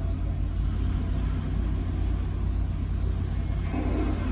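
Steady low engine rumble, with a slight rise in level about four seconds in.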